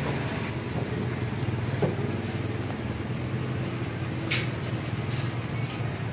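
Motorcycle engines running steadily as bikes ride through floodwater on the road, with a short sharp click about four seconds in.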